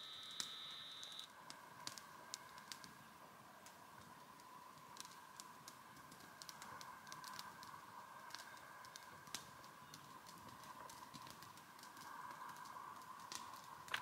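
Near-quiet forest background with faint, scattered small clicks and crackles at irregular intervals and a faint steady high tone underneath.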